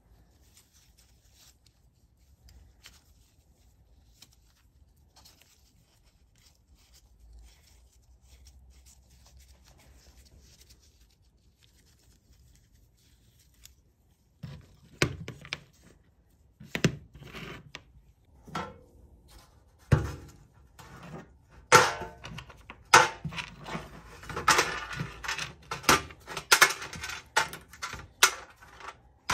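Faint handling noise, then from about halfway a run of sharp clicks and clinks, growing into dense clatter near the end: small steel derailleur parts (pulley cage, jockey wheel, bolts) being handled and set down.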